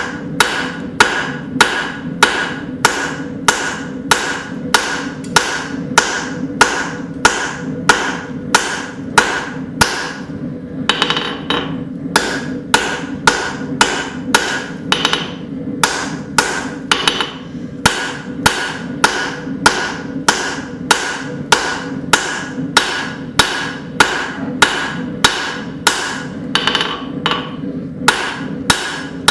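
Blacksmith's hammer striking a hot leaf-spring steel hatchet blank on the anvil, tapering the blade edge: steady blows about two and a half a second, each with a short metallic ring, with a brief pause about ten seconds in.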